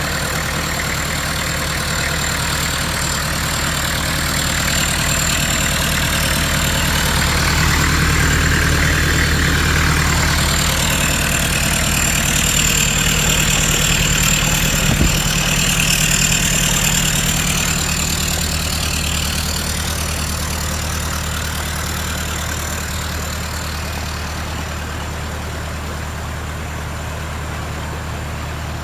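Engine of a lifted 4x4 on 35-inch tyres running steadily at an even pitch while it wades a river. A rushing hiss of churned water swells from about five seconds in and fades out before twenty seconds, with a single sharp knock in the middle.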